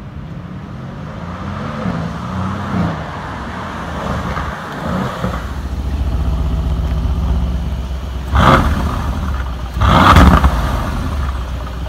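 Mercedes-AMG C63 S saloon's twin-turbo V8 rising in pitch as the car drives up, then idling steadily, revved twice in short blips about two-thirds of the way in and near the end.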